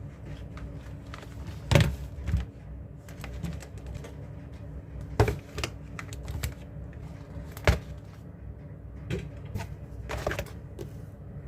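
Typing on a computer keyboard in irregular clicks, with a few louder knocks, over a low steady hum.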